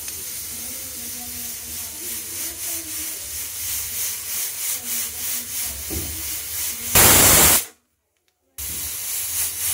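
Pressure cooker under steam: a hiss from the weight valve that grows and pulses as pressure builds, then a loud whistle of escaping steam about seven seconds in as the weight lifts to release pressure. The whistle breaks off abruptly and hissing starts again near the end.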